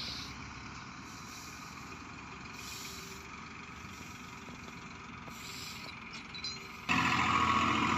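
Tractor engine running at a distance as it pulls a loaded sugarcane trolley, faint and steady. About seven seconds in, a much louder, hissing noise cuts in suddenly.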